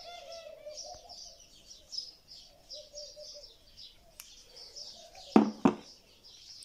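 Small birds chirping over and over, with two sharp knocks in quick succession near the end.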